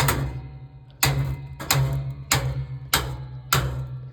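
Repeated hammer blows on a toaster oven's sheet-metal body, six sharp strikes about 0.6 s apart, each followed by a low, steady ring from the metal.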